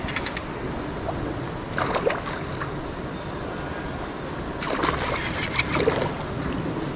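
Steady wind noise on the microphone, with two short louder bursts, about two seconds in and again around five seconds in.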